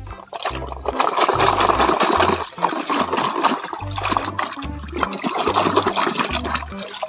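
Muddy water splashing and sloshing as a plastic toy dump truck is swished back and forth by hand to rinse the mud off it, starting about a second in.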